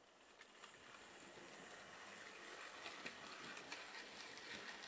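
Bachmann OO gauge model of an LMS Fairburn 2-6-4 tank locomotive pulling away on a low power setting: a faint motor whir with light wheel-and-rail clicks, growing over the first two seconds and then running steadily.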